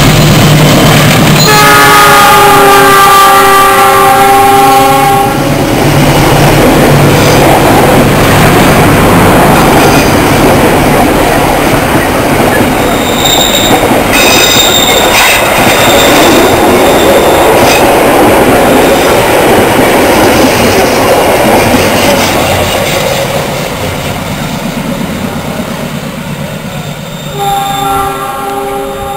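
A diesel locomotive's multi-tone horn blows for about four seconds near the start over its engine rumble. The passenger coaches then roll past with a continuous rush and clatter of wheels over the rail joints, with brief high wheel squeal about halfway through. The noise fades as the train draws away, and the horn sounds again briefly near the end.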